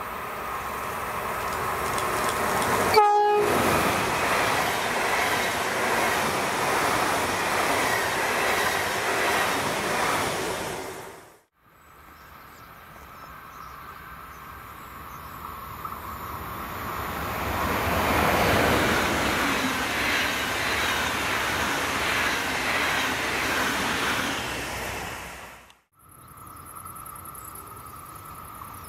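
Trains passing at speed, with wheel-on-rail noise swelling and fading twice. A short train horn blast sounds about three seconds in. The sound breaks off abruptly three times.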